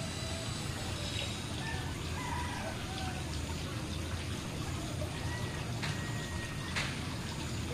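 Water falling from a small waterfall spout and splashing steadily into a koi pond.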